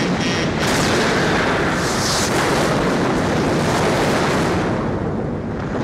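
Explosion sound effect from a pachinko machine's cannon-firing animation: a long, noisy roar that cuts in as the music breaks off about half a second in, with a hissing swell around two seconds in.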